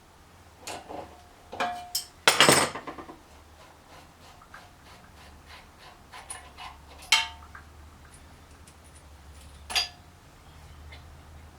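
A tool clinking and knocking against a small parts-cleaning dish caked with old paint, in separate sharp hits, some ringing briefly; the loudest knock comes about two and a half seconds in.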